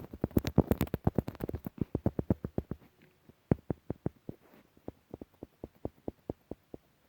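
A rapid run of sharp clicks, about eight a second, which thins out after about three seconds into scattered, quieter clicks.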